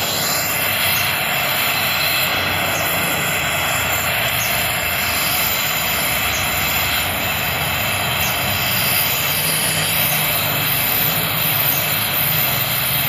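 Steady rushing roar of an oxy-fuel torch flame heating the rusted impeller hub of an irrigation water pump, to free the seized impeller from its shaft.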